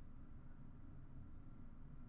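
Quiet room tone with a low steady hum.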